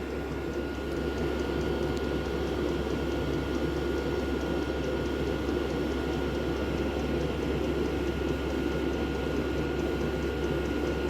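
Chinese diesel air heater running steadily: its blower fan gives an even whoosh with a thin steady whine. There is hardly any ticking or knocking from the fuel pump.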